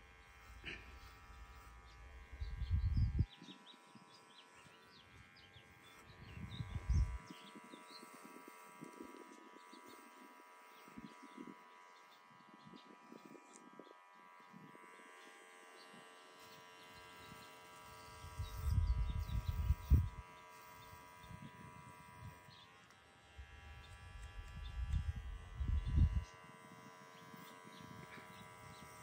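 Electric hair clippers running with a steady buzzing hum while cutting hair. Four low rumbles rise over it, about two seconds in, seven seconds in, near twenty seconds and near twenty-five seconds.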